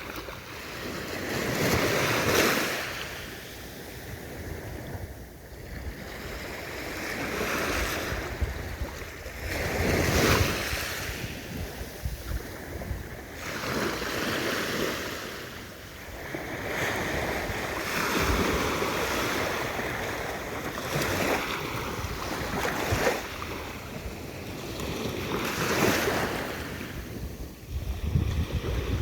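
Sea waves breaking and washing up the shore: a continuous rushing surf that swells to a peak and falls away every few seconds.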